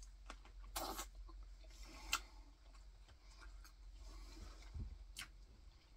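A person chewing a bite of andouille sausage close to the microphone: faint, with scattered soft mouth clicks and smacks.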